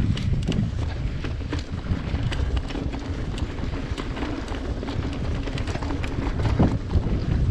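Mountain bike rolling over rough, rocky ground: frequent sharp clicks and knocks as the bike rattles, over a steady rumble of wind on the microphone.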